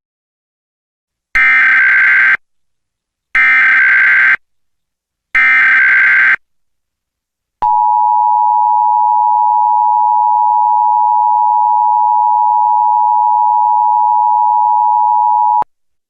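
Emergency Alert System SAME header: three one-second bursts of digital data screech, about two seconds apart. Then the EAS attention signal: two close tones sounding together, held steady for about eight seconds, which opens a Required Monthly Test.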